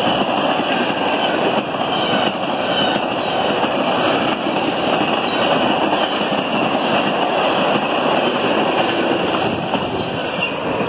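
Freight train of tank cars rolling past at close range: steady noise of steel wheels running on the rails.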